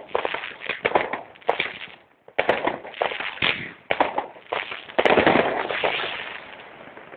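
Consumer fireworks going off in quick succession: sharp bangs and bursts of crackling, with the loudest burst about five seconds in, trailing off toward the end.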